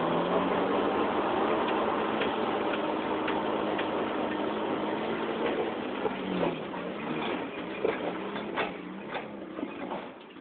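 Lifted pickup truck's engine running under load as it crawls over rocks, its pitch rising and falling with the throttle. In the second half, a string of sharp knocks and cracks from the tyres and underside working over the rocks, while the engine grows fainter.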